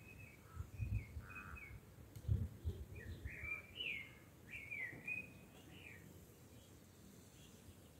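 A songbird singing in short, quick chirping phrases that slide up and down, dying away about six seconds in. There are a few faint low rumbles in the first few seconds.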